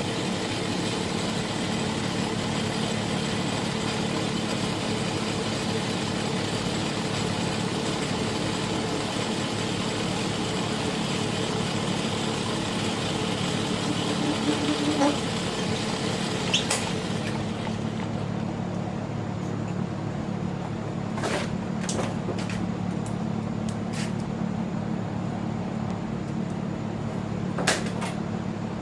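Small metal lathe running with a steady motor hum, turning down a bushing. A hiss from the cut drops away about 17 seconds in, followed by a few sharp clicks.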